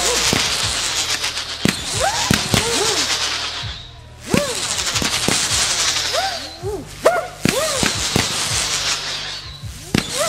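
Daytime fireworks going off in a dense, continuous crackle, with sharp bangs about one and a half, four and a half and seven seconds in. Short whistle-like tones rise and fall in pitch throughout. The crackle briefly thins just before four seconds.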